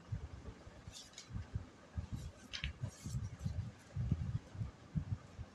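Hands handling a crocheted yarn mat, smoothing and pressing it flat on a table: irregular soft low bumps with a few brief rustles.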